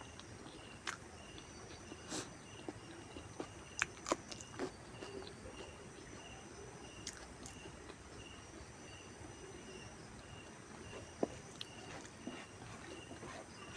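Faint chewing with scattered short clicks and crunches of someone eating, over a steady insect chirp pulsing about twice a second.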